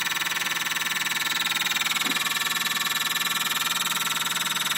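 Pair of 4GD-35-62 4-ohm loudspeakers, cones freshly glued, driven by a frequency generator at a very low test frequency of about 5 Hz. The cones pump in and out, giving a rapid, even pulsing.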